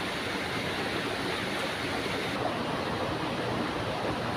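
Shallow stream water rushing steadily over a low concrete step in a concrete-lined channel.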